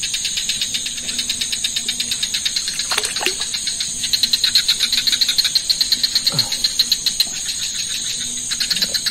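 Night insect chorus: insects chirping in fast, even pulses over a steady high-pitched drone, with a couple of faint, short falling calls.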